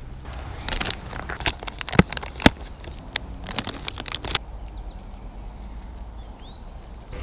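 Close handling noise from a swim jig and line being worked by hand: a run of crinkling and clicking for a few seconds, with two sharp clicks about two seconds in, then it quiets down.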